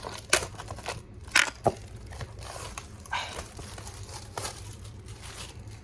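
Plastic shrink-wrap being peeled and torn off a box set, crinkling and crackling in irregular bursts.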